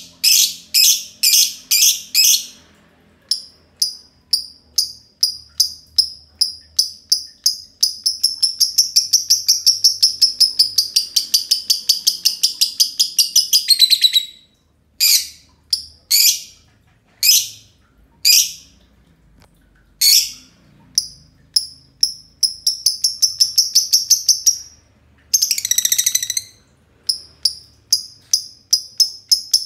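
Two green lovebirds calling in long 'ngekek' chatter: fast runs of shrill rattling notes, one from about eight seconds in to fourteen and another a little past twenty-two seconds, with separate sharp chirps between them.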